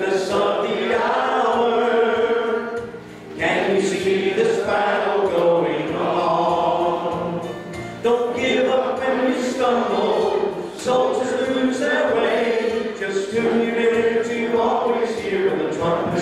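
A congregation singing a hymn together, led by a song leader on a microphone. It is sung in long held phrases, with brief breaks between lines about three seconds and eight seconds in.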